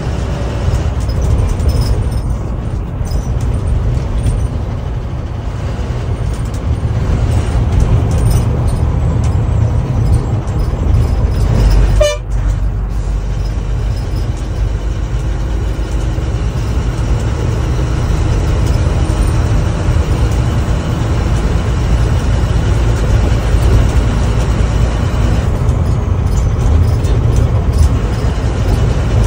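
Steady low rumble of engine and road noise from inside a moving vehicle's cabin on a highway.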